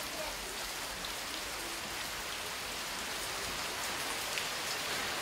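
Steady rain falling, with faint scattered drips.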